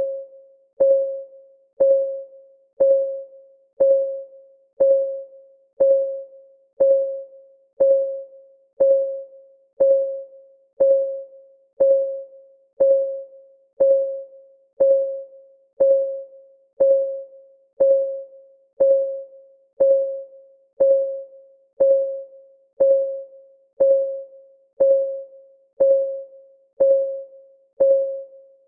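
Clock ticking sound effect of a countdown timer: a short, pitched tick about once a second, each one fading quickly, perfectly even throughout.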